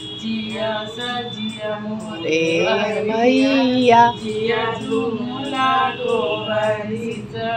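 Women singing a traditional Bhai Dooj folk song, a slow melody with long held notes.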